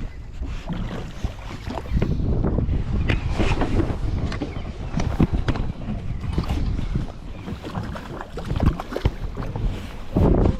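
Wind buffeting the microphone on a boat on open water, an irregular low rumble broken by frequent short knocks.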